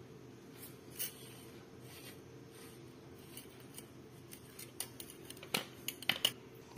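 Faint metallic clicks and light scraping from the spin mop handle's twisted steel spiral rod being gripped and worked in its aluminium handle tube, a few early on and a quick cluster of sharp clicks in the last couple of seconds, over a faint steady low hum.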